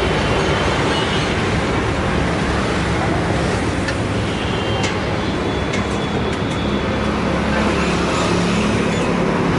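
Steady road traffic noise: a continuous wash of passing vehicles' engines and tyres, with a few light clicks.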